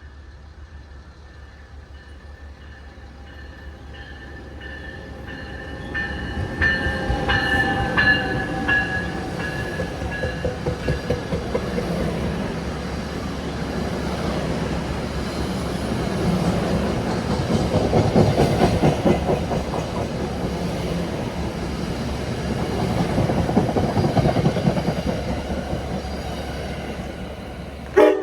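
Passenger train passing close by, its wheels rumbling and clacking over the rails, loud from about six seconds in. A horn chord dies away over the first several seconds as the train approaches.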